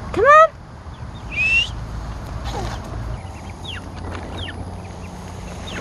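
Young ducks peeping: short, high, falling peeps scattered throughout. Right at the start there is a loud, short rising squeal, and about a second later a single higher squeak.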